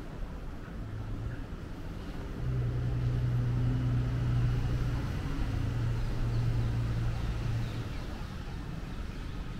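A motor vehicle's low engine hum, growing louder about two seconds in, holding steady for about five seconds, then fading, over steady outdoor background noise.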